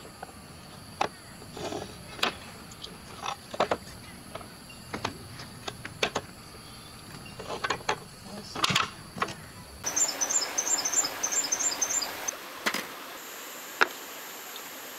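Interlocking wooden pieces of a burr-puzzle stool clacking and knocking against each other and the wooden bench as they are slid and fitted together, in irregular clicks with a louder cluster near the nine-second mark. After that comes rapid high chirping, then a few sharp taps, the loudest near the end, as a steel square is set down on a wooden block.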